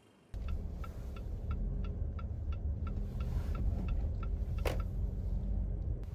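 Car interior: a steady low engine and road rumble with the turn-signal indicator ticking evenly about three times a second. There is one sharp knock about three-quarters of the way through.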